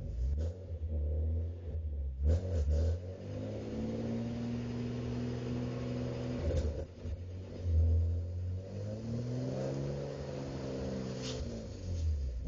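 Opel Monza GSE's straight-six engine heard from inside the cabin as the car pulls through the gears on a road test of its Getrag 265 gearbox. The engine note rises in each gear, breaks off at gearchanges about two and six and a half seconds in, and falls away near the end, over a steady low rumble.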